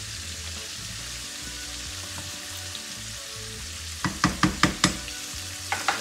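Hake frying in oil with a steady sizzling hiss. About four seconds in, a wooden spoon stirring a stainless steel pot of boiling dumplings and yam knocks against the pot five times in quick succession, then twice more near the end.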